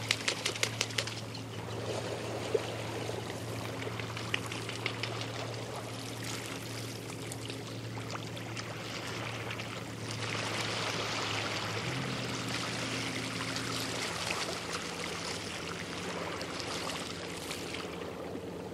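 Light waves lapping and sloshing against boats, with a steady low hum underneath. A fast rattle of clicks sounds in the first second, and the water grows louder for a few seconds from about ten seconds in.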